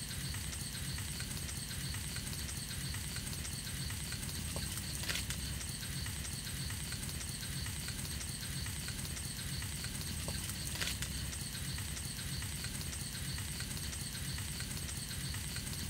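Butterflied catla fish grilling on a wire grill over charcoal: a steady sizzle and crackle, with a sharp pop about five seconds in and another near eleven seconds.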